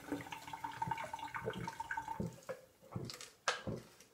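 A can of LaCroix sparkling water being shotgunned: liquid gurgles out of the punctured can and is gulped down, with several short separate gulps in the second half.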